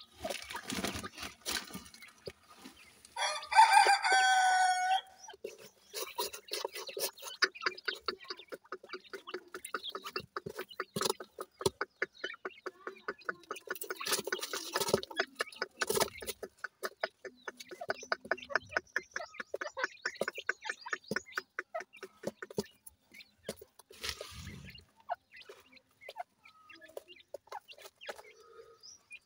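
Francolins clucking: a loud, pulsing call lasting about a second and a half comes about three seconds in, followed by long runs of quick, soft clucks as the birds feed. The clucking thins out near the end.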